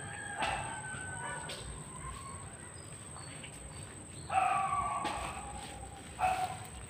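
An animal calling twice: a pitched call lasting under a second about four seconds in, then a shorter one near the end.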